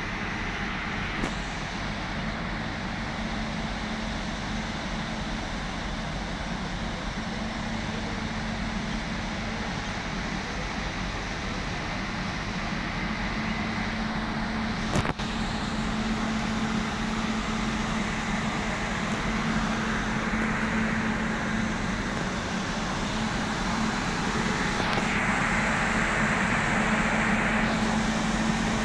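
WAG-9HC electric locomotive standing with its auxiliary machinery running: a steady mechanical hum and whir with a low tone, growing a little louder in the second half. A single sharp click comes about halfway through.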